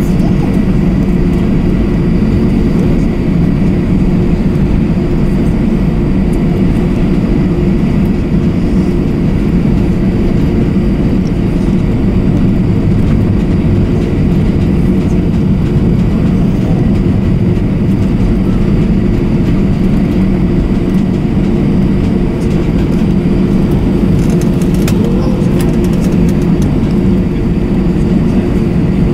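Steady drone inside the cabin of an Airbus A321-232, its IAE V2500 jet engines and air system running evenly, with a few thin steady tones above the low rumble.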